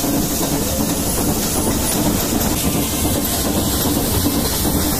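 A steam-hauled Nilgiri Mountain Railway train running, heard from inside a passenger carriage: a steady noise of wheels and coaches on the rails, with the hiss of the steam locomotive over it.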